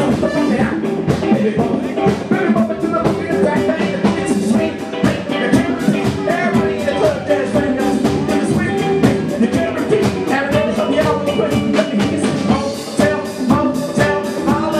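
Live band playing: a singer over electric guitars and a drum kit, with a steady beat.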